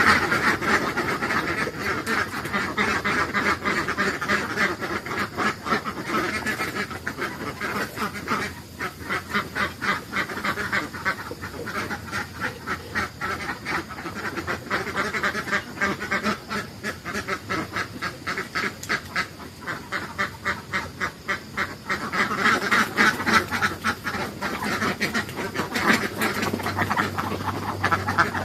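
Flock of ducks quacking continuously, with many calls overlapping. The calling is busiest at the start and again in the last few seconds.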